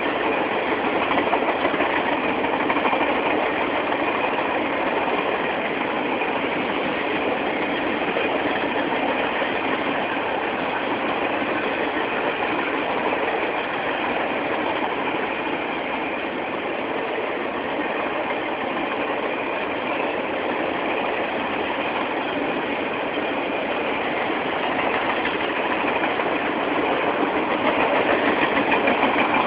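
Triple Crown RoadRailer train rolling past: a steady noise of steel wheels on rail as the highway trailers on their rail bogies go by, a little louder near the end.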